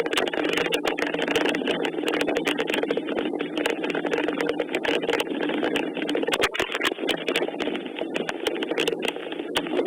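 Rain falling: a steady hiss with many sharp drop clicks close to the microphone.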